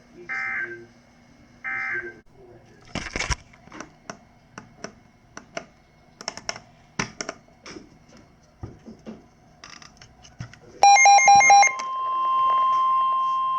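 NOAA Weather Radio Emergency Alert System data bursts: two short end-of-message bursts of warbling data tones close out the tornado warning. After several seconds of faint scattered clicks, a loud burst of data tones about 11 s in is followed by the steady single-pitch 1050 Hz weather-radio warning alarm tone, which announces the next alert.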